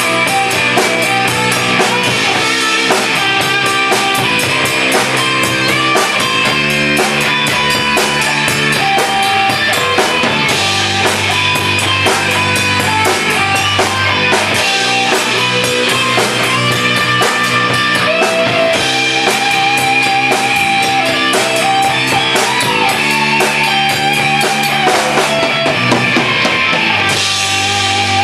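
A rock band playing live: electric bass and electric guitar over a drum kit, loud and steady. The cymbals drop out about a second before the end.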